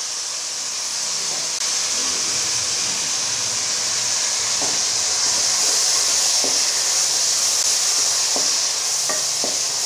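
Sliced onions frying in hot oil, a steady loud sizzle with a few small pops; a wooden spoon stirs them near the end.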